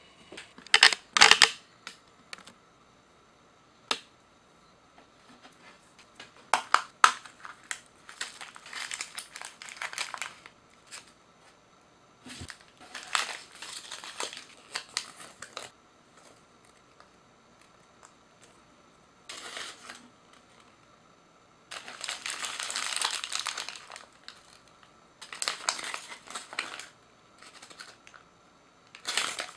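Plastic gashapon capsule snapped open with sharp clicks, the loudest about a second in, then repeated bursts of crinkling as the plastic packaging and the folded paper insert inside are handled and unfolded.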